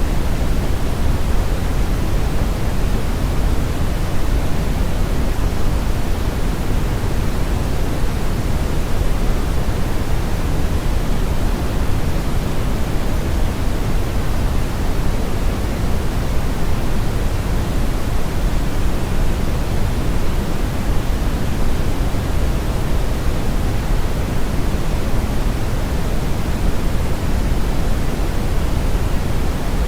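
Synthetic brown noise blended with white noise: a steady, unbroken hiss weighted toward the low end, with a thinner hiss above.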